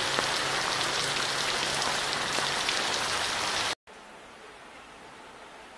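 Steady rain pouring down, a dense hiss with scattered drop ticks. It cuts off abruptly a little past halfway, leaving only a faint quiet room hiss.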